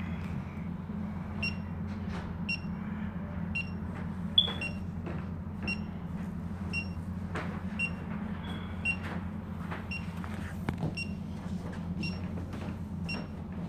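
Anti-lost alarm for an iTAG Bluetooth key-finder tag: short, high electronic beeps about once a second over a steady low hum, with a few faint clicks.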